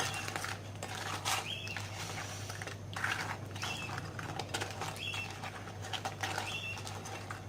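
Spoon tossing fried chicken pieces through a thick mayonnaise-based sauce in a bowl: soft, wet, sticky mixing sounds with occasional light scrapes. Short high chirps repeat about once a second behind it, over a low steady hum.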